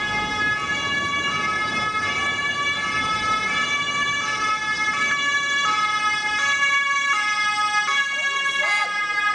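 German two-tone emergency-vehicle sirens, more than one sounding out of step, switching back and forth between two pitches about once a second. They are most likely fire engines responding to the balcony fire.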